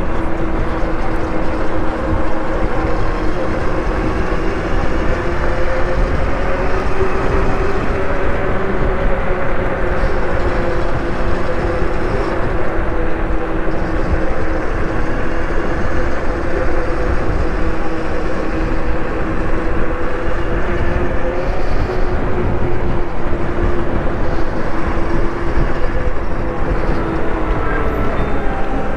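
Wind rushing over the microphone of a moving rider on a group e-bike ride, with a steady motor tone under it that falls in pitch near the end as the bike slows.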